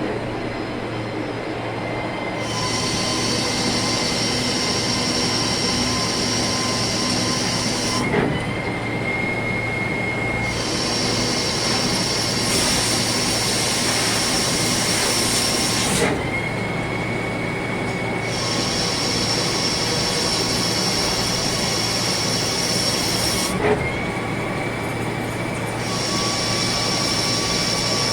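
CNC lathe running through repeated part cycles: a steady machine whine with a high hiss that comes and goes in stretches of several seconds. A short sharp knock comes about every eight seconds, three times.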